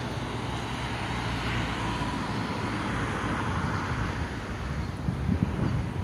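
Road traffic noise: a steady rush of passing cars, swelling a little in the middle, with one brief low sound about five seconds in.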